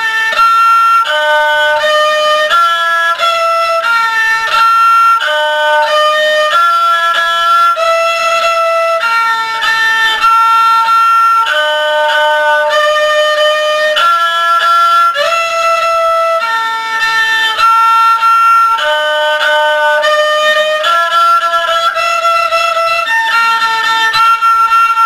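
Instrumental music from a violin-like melodic instrument: a run of held, steady notes, often two at once, moving in steps about once a second. It is played as a pitch reference for tuning.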